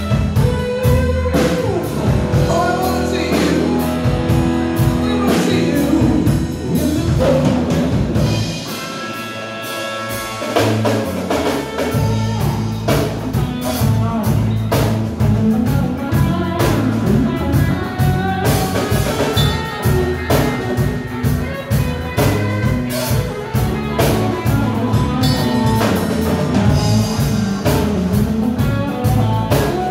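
A live band plays a reggae arrangement on electric guitar, bass guitar and drum kit. The low end drops away for a few seconds about eight seconds in, then the full band comes back in.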